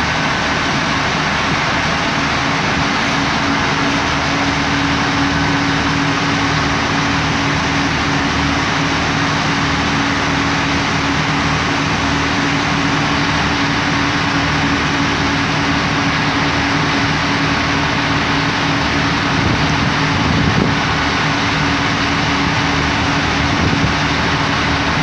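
Irish Rail Commuter diesel multiple unit standing with its engines idling: a steady diesel drone with a constant low hum that neither rises nor falls.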